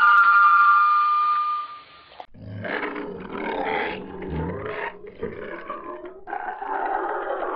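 Animal calls: a steady, high-pitched call for about two seconds that cuts off abruptly, then a rough, rumbling animal vocalisation in several uneven stretches.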